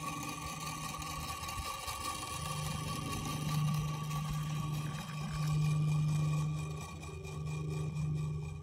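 The small motor and gears of a solar toy windmill, whirring as the blades spin. It is a steady hum that swells and dips a few times, then fades out at the very end.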